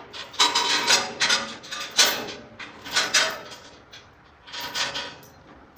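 Metal chain rattling and clanking in irregular bursts as it is pulled free after snagging around a loading ramp.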